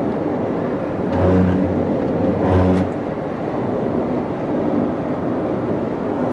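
Steady road and engine noise inside a moving car, with a low droning tone sounding twice, about a second in and again near three seconds.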